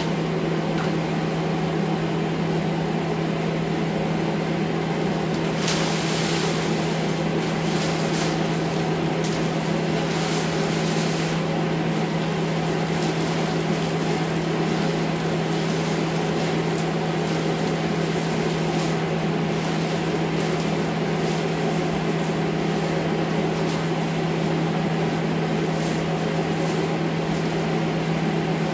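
Steady hum of an air scrubber's fan running throughout. Plastic sheeting crinkles for several seconds about six seconds in, with a few more scattered crinkles later, as it is stuffed into a trash can.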